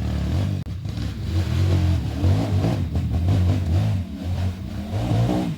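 Trail dirt bike engine running under throttle, the revs rising and falling unevenly as it is ridden.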